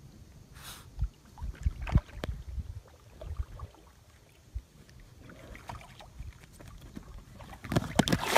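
Inflatable kayak on open water: water lapping against the hull with irregular low thumps from the boat. Near the end comes a quick cluster of sharp knocks as a small dog leaps off the bow.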